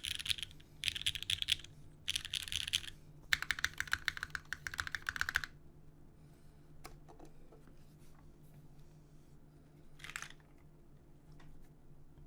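Typing on a Nice60 60% keyboard with lubed Cherry MX Black linear switches, a polypropylene plate and GMK keycaps, in quick bursts of keystrokes for about five seconds. After that the typing mostly stops, leaving a few single key clicks and one short burst of keystrokes about ten seconds in.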